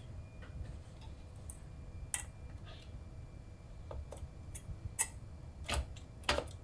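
Scattered light clicks and taps of hardware being handled: a sharp click about two seconds in, then a cluster between five and six and a half seconds, over a low steady hum.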